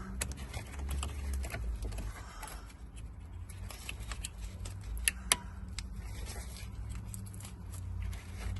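Scattered light clicks and rattles of hand tools and parts being handled while parts are removed to reach a car's ignition switch, with two sharp, louder clicks about five seconds in. A steady low hum runs underneath.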